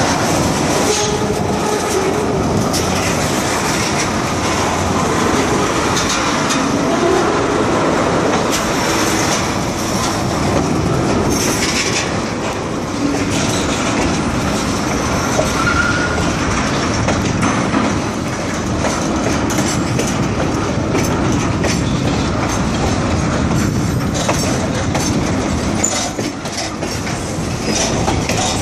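Loaded freight cars rolling slowly past on jointed rail: a steady rumble of steel wheels, with clicks each time a wheelset crosses a rail joint.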